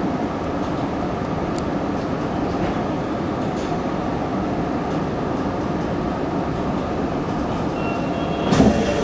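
Tokyo Metro Tozai Line subway train running slowly through a station and coming to a stop, a steady rumble heard from inside the car. Near the end comes a sudden louder burst of noise.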